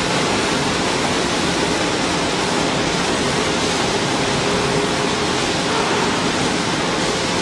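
Steady machine noise from a 315-ton hydraulic press's pump unit running idle, an even hiss with a faint steady hum and no change or impacts.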